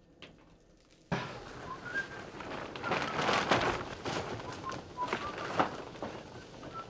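Rustling and trampling of people pushing on foot through dense weeds and undergrowth, starting abruptly about a second in, with short bird chirps over it.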